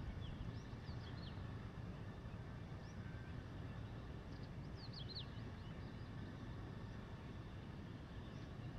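Faint high chirps of small birds, a few scattered notes with a small cluster about five seconds in, over a steady low background rumble.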